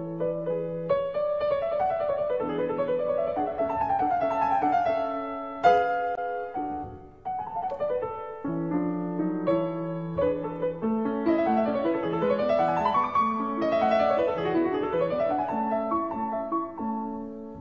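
Solo piano music with quick rising and falling runs, briefly dropping away about seven seconds in.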